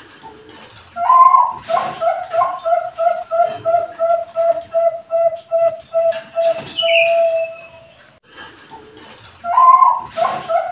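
Bangkok-type zebra dove (perkutut) singing one full song phrase. A higher opening note about a second in is followed by a run of about a dozen quick, even coos and then one longer drawn-out final coo. After a short pause the next phrase begins near the end.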